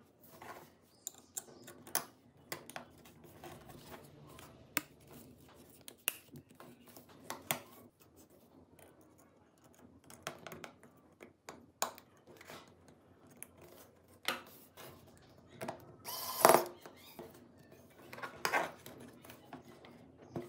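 Small clicks, taps and light scrapes of tweezers and fingers handling a smartphone's circuit board, internal parts and plastic midframe on a table, irregularly spaced, with one longer, louder scraping clatter about three-quarters of the way through.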